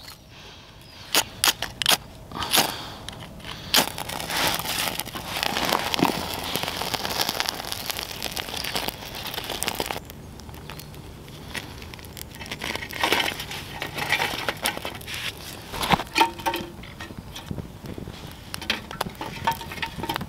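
Dry grass, twigs and birch bark being handled and broken, with a run of sharp snaps. Then comes the crackle of a small tinder fire as it catches and is fed with twigs in a small steel wood-burning stove.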